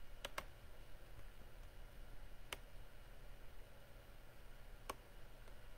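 Computer mouse clicking: a quick double click near the start, then single clicks about two and a half and five seconds in, over a faint low hum.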